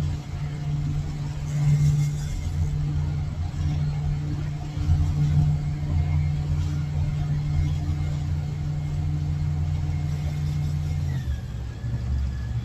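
Boat's outboard engine running steadily under way, a continuous low drone whose note shifts slightly about eleven seconds in.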